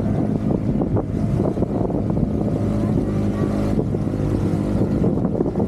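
Engine of a small open motorboat running steadily under way, with wind buffeting the microphone and water splashing around the hull.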